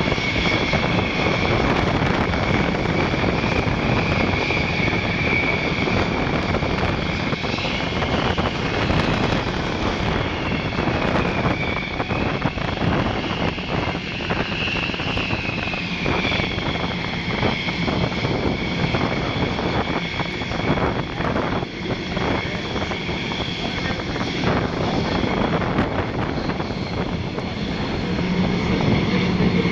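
Jet engines of Thunderbirds F-16 fighters running on the ground. They make a steady noise with several high whines that drift slowly up and down in pitch.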